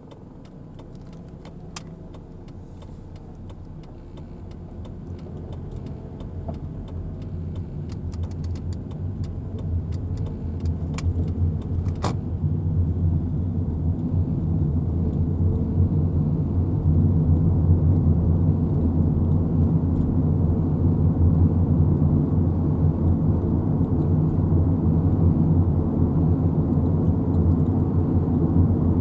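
A car running, its engine and road noise a low steady hum that grows louder over about the first fifteen seconds, as if gaining speed, and then holds steady. A few faint clicks sound in the first half.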